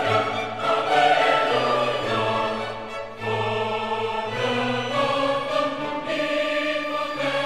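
Background music: choral voices over an orchestral backing, with long held notes that shift every second or so.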